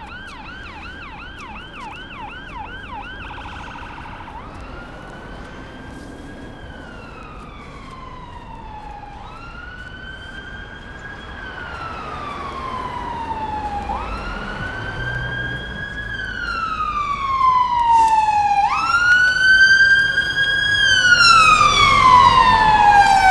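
Fire engine siren: a fast yelp for the first few seconds, then a slow wail, each cycle rising quickly and falling slowly over about four to five seconds. It grows louder through the second half as the engine approaches.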